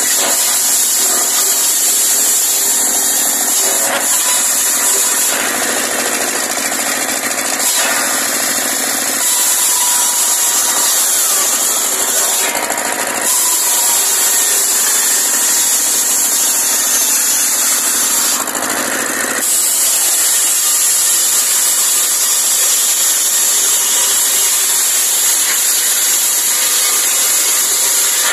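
Large engine-driven circular saw blade cutting through a log, a loud continuous sawing sound whose tone shifts several times as the wood is pushed into the blade.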